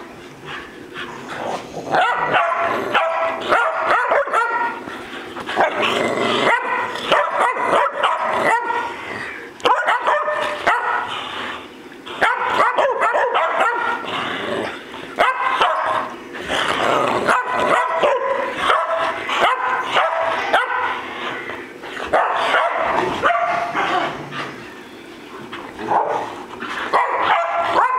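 Dogs barking and yipping at play, in runs of rapid barks with short lulls between.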